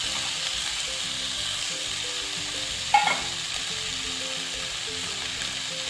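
Spring onions and soaked chana dal frying in hot oil in a pan, a steady sizzling hiss. One sharp knock comes about halfway through.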